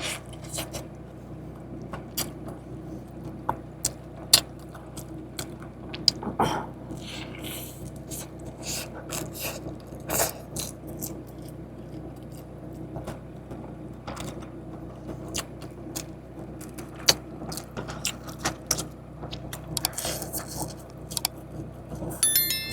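A person eating a KFC Zinger chicken sandwich with bites and chewing. Scattered sharp clicks and rustles run through it, over a steady low hum.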